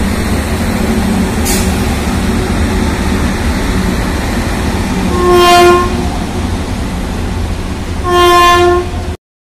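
A freight train hauled by a pair of Indian Railways electric locomotives rumbles past steadily. The locomotive horn gives two blasts of just under a second each, about five and about eight seconds in, and then the sound cuts off abruptly.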